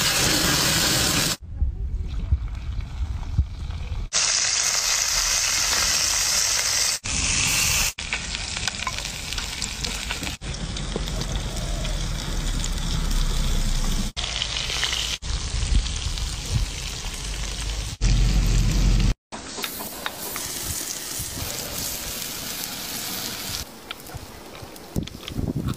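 Seafood and oil sizzling and frying on a hot stone slab over a wood fire, with a wooden spatula stirring and scraping. The sound changes abruptly every few seconds as one short cooking clip cuts to the next.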